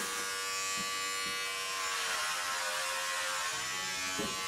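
Electric hair clipper running with a steady buzz while it trims a man's bangs.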